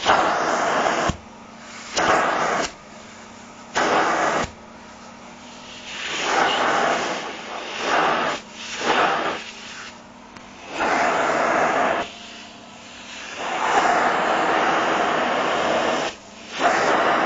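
Vacuum cleaner sucking at a nylon down jacket: a steady motor hum under a rushing air noise that surges loud and drops away irregularly every second or two as the fabric is drawn against the nozzle and let go.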